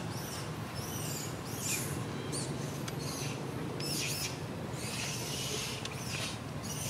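Repeated short, high-pitched squeaky chirps from a small animal, over a steady low hum.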